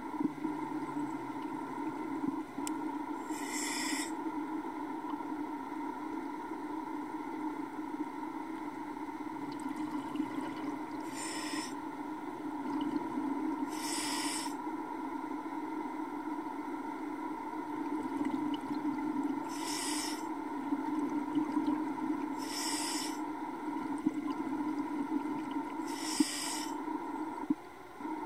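Underwater sound picked up by a submerged camera: a steady low drone, with a short hiss six times at irregular intervals of a few seconds.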